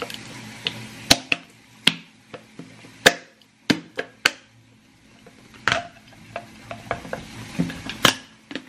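A glass meal-prep container and its lid being handled: a string of sharp separate clicks and knocks, about eight of them at uneven spacing.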